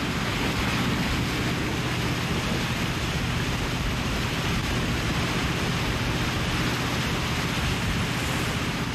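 Motorboat under way: a steady engine hum beneath the constant rush of its wake churning the water.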